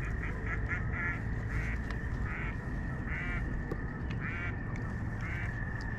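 An animal calling in short repeated calls, about nine in six seconds and unevenly spaced, over a steady high-pitched trill that runs throughout, with a low rumble underneath.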